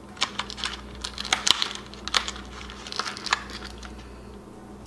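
Light, sharp plastic clicks and taps from a pack of press-on nails being handled, coming at irregular moments and dying away about three and a half seconds in.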